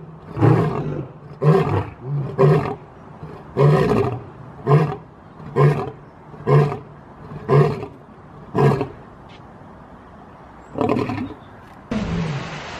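Male lion roaring: a run of short, deep grunting roars about one a second, a pause of a couple of seconds, then one more. Near the end the sound cuts abruptly to a steady hiss.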